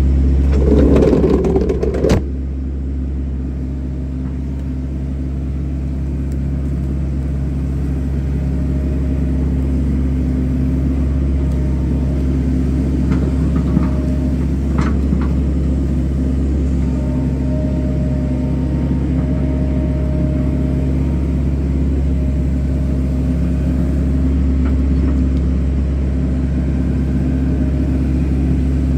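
Excavator's diesel engine running steadily with a deep hum. In the first two seconds a louder rushing noise ends in a sharp knock.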